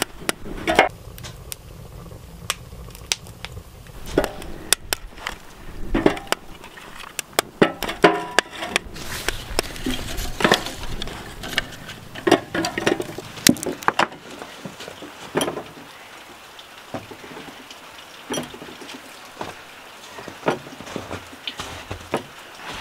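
Split firewood logs knocking against one another and against a steel brazier as they are laid on a newly lit kindling fire, with irregular sharp crackling from the burning kindling. The knocks are thickest in the first two-thirds; after that, sparse crackles remain.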